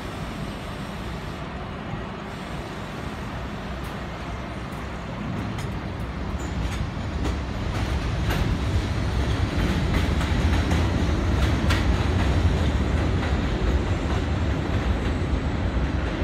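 R32 subway train pulling out of the station on the elevated line, its running noise building from about five seconds in as it gathers speed, with wheels clicking over the rail joints.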